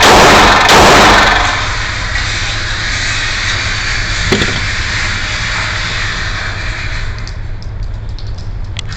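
Glock 19 Gen 6 9mm pistol fired in quick succession, the last two shots about two-thirds of a second apart, then the firing stops. A steady low background rumble follows, with a single sharp knock about four seconds in and a few faint clicks near the end.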